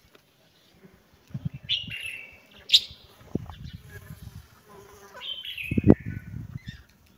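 Two high-pitched animal calls, each falling in pitch, about three and a half seconds apart. A sharp click comes between them, with low knocking and rustling underneath.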